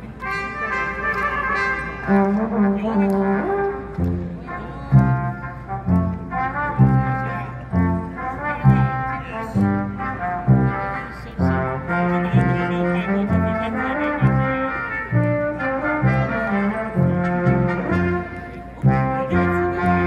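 A live brass band playing a tune, with short repeated low brass notes under the melody.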